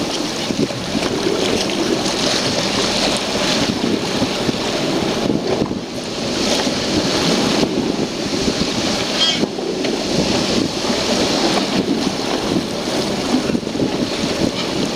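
Wind buffeting the microphone over a rough sea, with waves washing and breaking in a steady loud rush.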